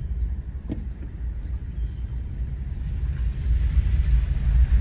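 Low, steady rumble of a car heard from inside the cabin, with a hiss that grows louder about three seconds in.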